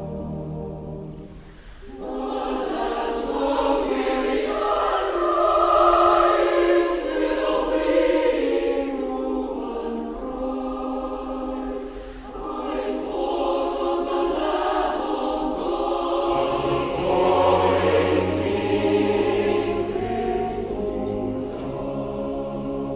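Background music of a choir singing slow held chords, coming in about two seconds in after a brief dip.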